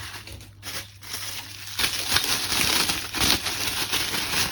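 Packaging crinkling and rustling as parts are handled and unwrapped, getting much louder about two seconds in.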